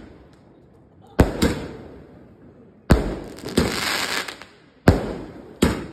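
Moorthy Antiquity 100-shot firework cake firing crackling aerial shells: about six sharp bangs, mostly in pairs, each trailing off in crackle, with a longer spell of dense crackling in the middle.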